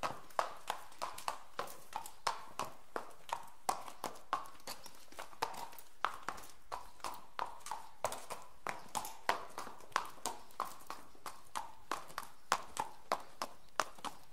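Horse hooves clip-clopping at a walk on a concrete-block paved road: sharp, even hoofbeats at about three a second.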